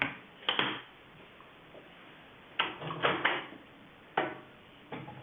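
A microwave door and a container being handled: a handful of separate knocks and clunks as the container of melting conditioner mix goes back in and the door is shut.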